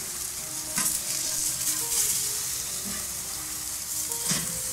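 Veal bratwurst patties sizzling on a hot charcoal grill grate as they are flipped with a metal spatula. Two short scraping sounds from the spatula on the grate come about a second in and again near the end.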